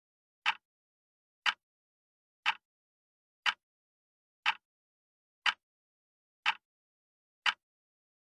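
Clock-ticking sound effect: a short sharp tick exactly once a second, eight in all, with silence between the ticks.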